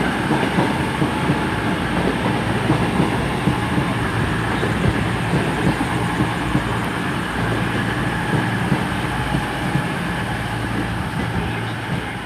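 CrossCountry class 221 Super Voyager diesel multiple unit running into the platform, its underfloor diesel engines humming under the clatter of wheels on the rails. The sound stays steady and eases slightly near the end.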